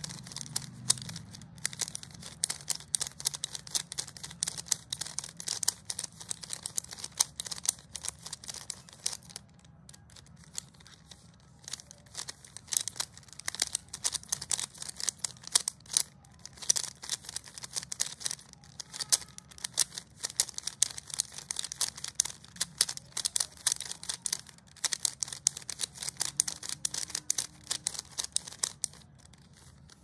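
A stickerless 3x3 speed cube turned rapidly by hand: fast runs of plastic clicks and clacks as the layers turn, with a couple of brief pauses.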